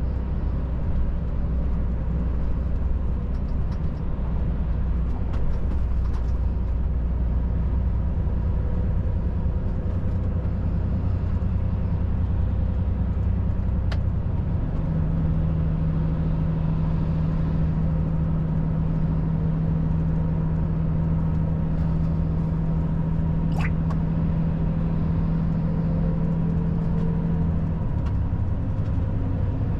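Volvo FH 540 truck driving at highway speed: steady engine and road noise. Its low hum changes pitch about halfway through and again near the end.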